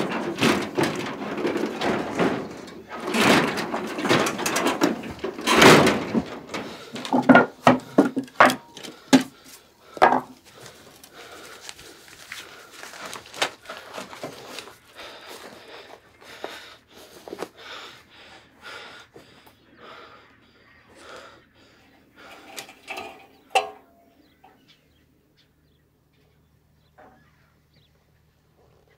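Objects being handled and rummaged through in a small wooden room: clattering, knocks and rustling, dense and loud for the first ten seconds, then scattered clicks and taps that die away to near silence near the end.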